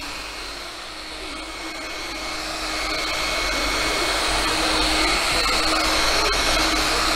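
Handheld electric polisher running steadily with its buffing pad on a car door panel: a continuous motor whine. It gets quieter about a second in, then louder again over the next few seconds.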